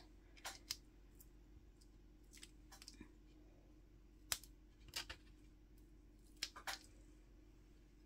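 Hands handling paper and cardstock: a scattering of soft, short clicks and rustles over near silence, the sharpest a little past four seconds.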